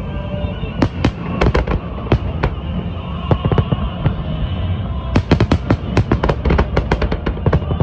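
Fireworks exploding in quick succession, a string of sharp bangs that comes thickest as a dense volley in the second half.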